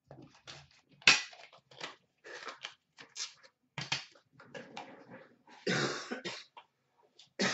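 A small cardboard box being slit open with a pocket knife and unpacked by hand: a run of short, sharp cardboard and paper noises. The sharpest comes about a second in, and a longer rustle comes about six seconds in.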